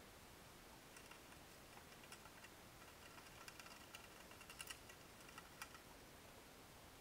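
Faint, irregular clicking and ticking, thickest about three to five seconds in: mice scrabbling at and inside a live-catch mousetrap.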